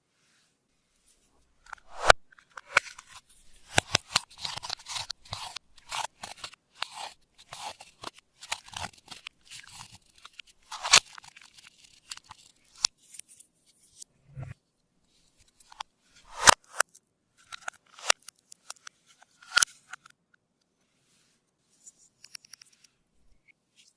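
Hands squishing and stretching slime: irregular sticky crackles and clicks, with a few sharper loud pops.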